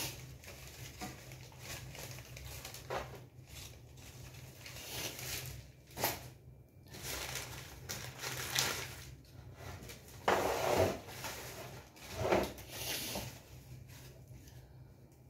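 Thin paper sheets rustling and crinkling as they are handled, sorted and pressed flat, in a series of bursts, the loudest about two-thirds of the way through. A faint steady low hum runs underneath.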